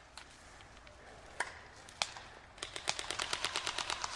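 Airsoft guns firing: two single shots in the first half, then from about two and a half seconds in, a rapid automatic burst of about ten shots a second.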